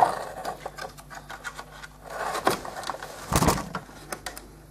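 Thin plastic RC car body shell being handled close up: scattered clicks and rustles, with a louder knock about three and a half seconds in.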